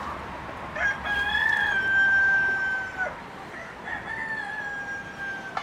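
Rooster crowing twice: two long, drawn-out crows, each holding a steady note and dropping off at the end, the first about a second in and the second just after the middle.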